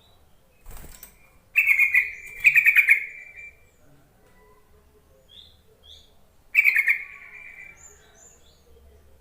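Yellow-vented bulbul (trucuk) calling: three loud bursts of rapid chattering notes, at about one and a half, two and a half and six and a half seconds in, each trailing off downward. Fainter, higher chirps come in between.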